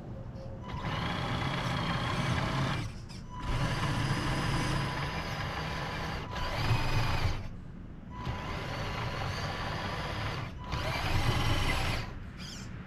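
1/14 Tamiya Grand Hauler RC truck driven in start-stop bursts through grass: its motor and gearbox whine during each pull, with the pitch rising and falling, then cut off in short pauses, about five times.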